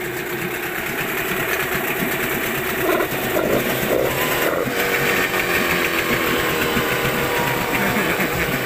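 Yamaha 15 hp outboard motor running steadily at idle with its cowling off, so the powerhead's mechanical clatter is heard directly.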